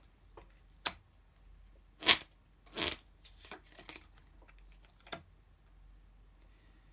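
Tarot cards being handled on a table: a handful of short card snaps and slides as cards are drawn and laid down. The sharpest snap comes about two seconds in, followed by a short swish.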